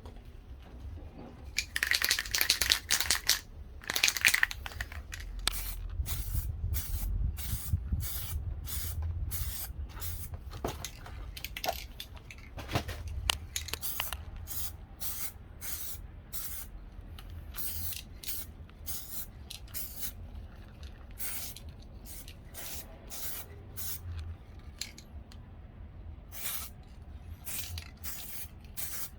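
Aerosol spray can of primer hissing as a coat is sprayed on: a longer spray about two seconds in, then many short puffs in quick succession.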